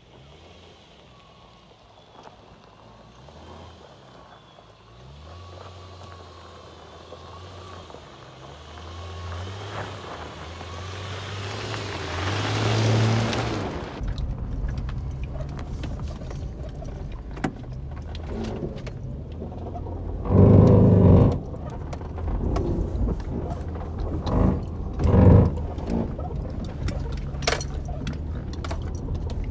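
Lifted Subaru Outback driving on an off-road trail: the engine's pitch rises and falls with the throttle and grows louder, then changes suddenly about halfway through to a steady low rumble of tyres and suspension on rough ground, with rattling and two loud thumps in the second half.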